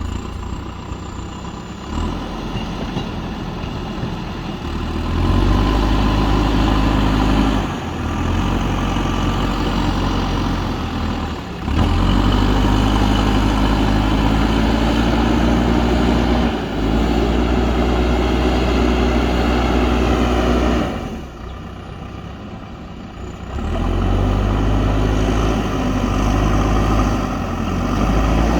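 JCB backhoe loader's diesel engine working under load. It revs up and settles back several times, with a quieter idle stretch about three-quarters of the way through before it revs up again.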